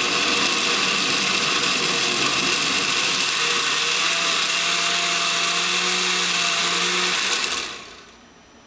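Oster glass-jar blender motor running steadily, pureeing chunks of bitter melon in water, then switched off about seven and a half seconds in and winding down.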